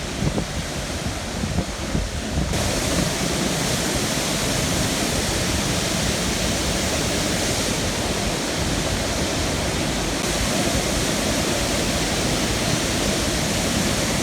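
Loud, steady rushing of water with wind on the microphone, turning brighter and hissier about two and a half seconds in.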